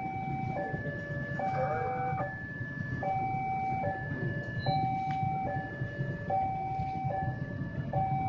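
Railway level-crossing warning alarm sounding its two-tone electronic signal, high and low notes alternating about every 0.7 s, which warns that a train is approaching. A low rumble runs underneath.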